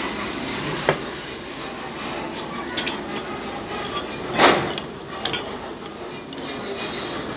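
A spoon stirring a bowl of chopped onion, garlic and chili, clinking against the bowl several times, with one louder scrape about four and a half seconds in, over steady background noise.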